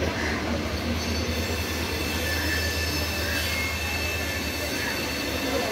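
Indian Railways diesel locomotive running close by, a steady low engine rumble with a few faint, thin high-pitched tones above it.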